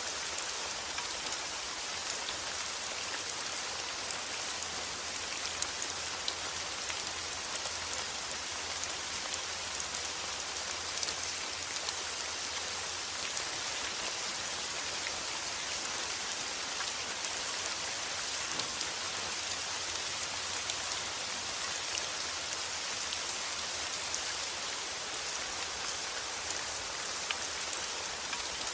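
Steady rain falling, with an even hiss and many small drop ticks on a surface.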